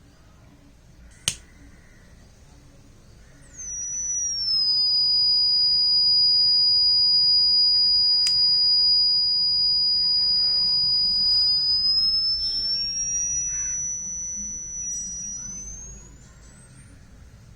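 Buzzer of a home-made diode-sensor fire alarm sounding a shrill, high electronic tone: it sweeps down in pitch as it starts, holds steady for about eight seconds, then climbs in pitch and dies away. A single sharp click comes about a second in.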